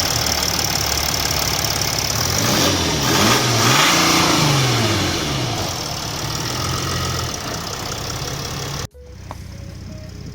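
BMW E36 engine running just after start-up, its revs rising and falling a few times before settling. The sound cuts off abruptly about a second before the end.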